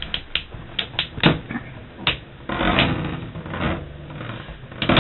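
Two Metal Fight Beyblade tops, Dark Wolf and Burn Wolf, clashing in a stadium: irregular sharp clicks and knocks, with a stretch of scraping rattle a little past halfway.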